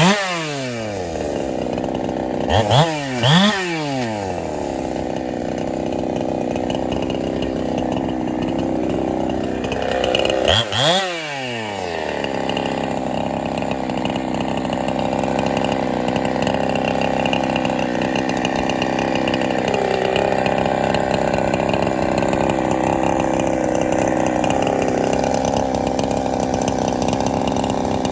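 Ported Holzfforma 372 two-stroke chainsaw (a Husqvarna 372 clone, still being broken in) revved sharply and let back down near the start, twice more around three seconds and again near eleven seconds, then held at steady high revs through a long cut from about twelve seconds on, dipping slightly under load.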